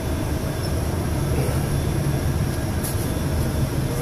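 Tour coach driving along the road, heard from inside the cabin: a steady low drone of engine and road noise.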